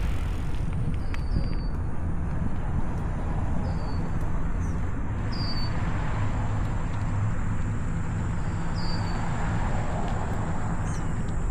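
Steady rumble of wind and rolling noise from riding, with a bird giving a few short downward chirps over it.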